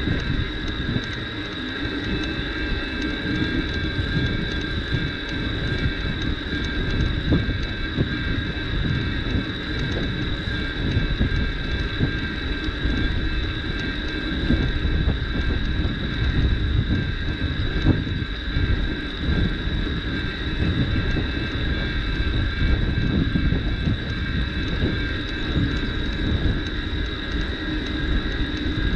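Bicycle riding over a gravel forest track: a continuous rough rumble of tyres and wind on the microphone, with a steady high whine of several tones held over it.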